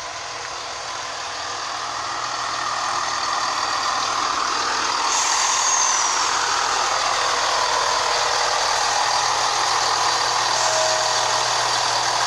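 Class 170 Turbostar diesel multiple unit running into the station, its engine and wheel noise growing louder over the first few seconds and then holding steady. Short high squeals falling in pitch, typical of brakes as the train slows for its stop, come about five seconds in, with a fainter falling tone near the end.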